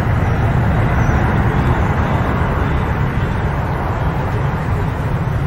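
Jet airliner climbing away after takeoff, its engines making a steady, deep rumble.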